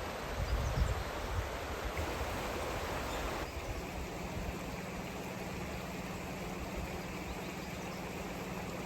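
A river flowing: a steady rush of running water. Wind buffets the microphone in the first second or so, and about three and a half seconds in the water sound changes abruptly, with a faint low hum underneath.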